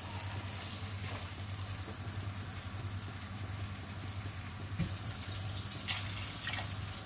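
Water being poured into a pot of fried chicken pieces: a steady rushing hiss, with a couple of light knocks near the end.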